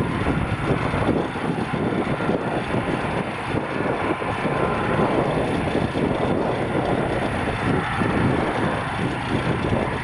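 Gulfstream G650ER's twin Rolls-Royce BR725 turbofans running at low taxi power: a steady jet noise with a faint whine.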